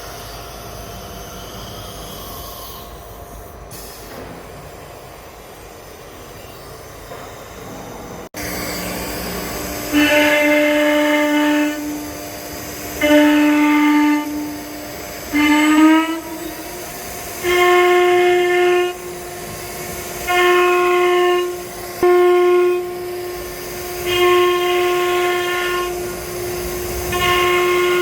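Automatic tool change CNC router running a job. The machine noise steps up about eight seconds in. After that a high-pitched whine comes and goes every second or two, and its pitch glides up partway through, as the spindle cuts and lifts between strokes.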